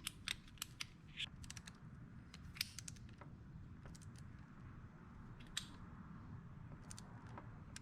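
Faint, irregular light metallic clicks and ticks of hand tools tightening small bolts to a low torque (6 N·m), over a low steady room hum.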